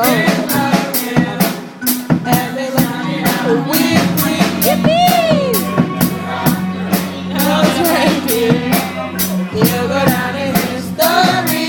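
Music with a steady drum-kit beat and a sustained bass line, with vocals sliding in pitch over it.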